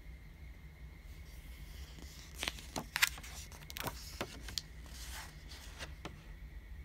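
Paper page of a picture book being turned by hand: a quick run of crisp rustles and slaps about two and a half seconds in, then a few softer rustles as the page settles.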